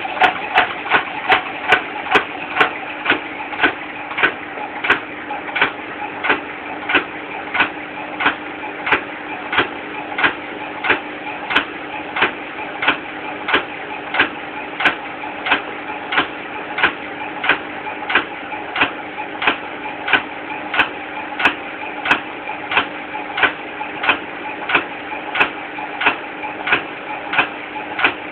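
Indesit washing machine running with a steady motor hum and a regular knock about one and a half times a second, each knock in step with the turning drum.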